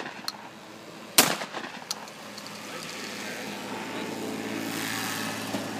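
A single shotgun shot about a second in, fired at a clay target, with a brief echo trailing off. A steady rushing noise then builds over the last few seconds.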